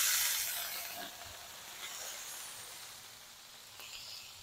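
Lemon juice hitting a hot Blackstone flat-top griddle around searing salmon fillets: a burst of hissing sizzle that is loudest at the start and fades away over a few seconds as the juice steams off.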